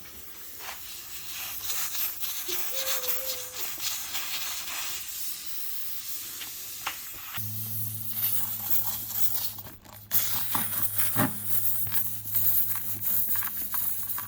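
Scraping and rasping of a tire-plug reamer tool worked in and out of a tire puncture to widen the hole, with background music. A steady low hum comes in about halfway.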